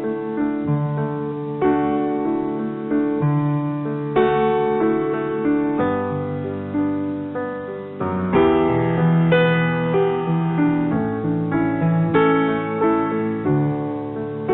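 Instrumental music: a piano playing a slow, gentle passage of chords and melody notes, each struck note fading before the next.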